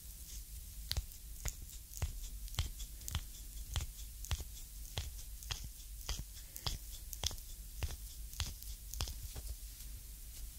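Thumbs pressing and rubbing hard over the sole of a bare foot in a deep reflexology massage, picked up close by binaural microphones: crisp skin-friction clicks and crackles about twice a second.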